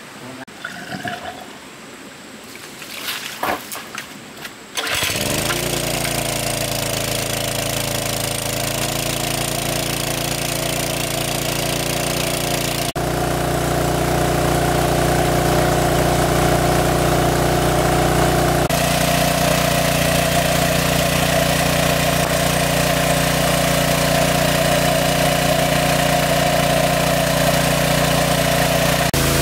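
Small engine-driven water pump running steadily. It comes in abruptly about five seconds in, after a few seconds of quieter, irregular sound.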